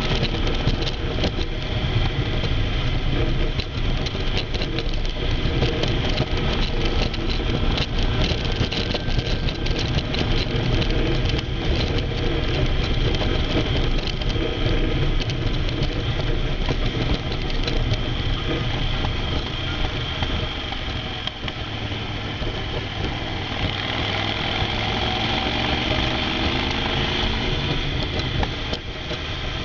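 Motorcycle engine running on the move with strong wind rush over the bike-mounted camera; the engine note changes in the last few seconds.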